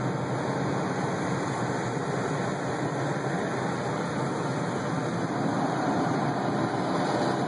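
Automatic car wash running, a steady rushing noise without breaks.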